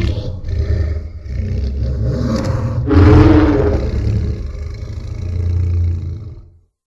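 Godzilla Earth roar sound effect from the Godzilla anime films: a deep, rumbling, engine-like growl that swells again about three seconds in and fades out near the end.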